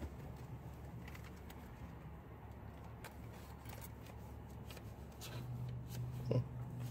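Steady low hum of a car idling, heard from inside the cabin, with faint rustles and clicks. The hum grows louder near the end, and a single sharp sound comes shortly before the end.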